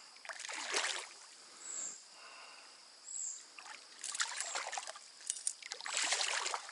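Water splashing and sloshing in three bursts: about half a second in, around four seconds in, and near the end. A faint high chirp repeats every second and a half or so behind it.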